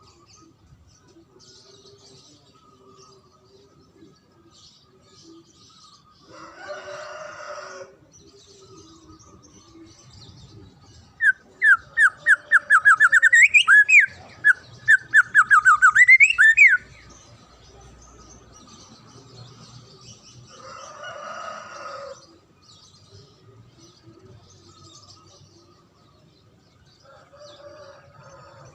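Songbird singing a loud, very fast run of sharp repeated chirps with rising sweeps for about five seconds midway, with two shorter, rougher calls before and after it and faint chirping around it.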